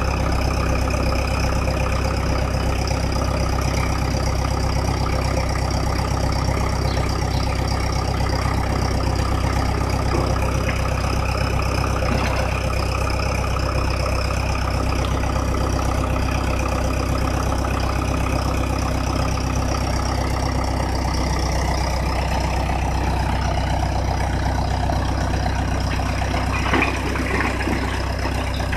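Mahindra 475 DI tractor's diesel engine running steadily, driving the hydraulic lift that tips a trailer loaded with broken bricks. A brief clatter near the end.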